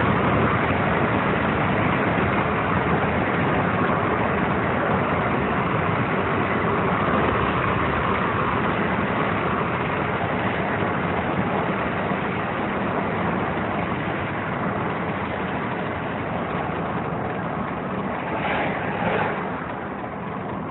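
Steady road and wind noise of a vehicle driving along a road, heard from inside the vehicle, growing a little quieter toward the end.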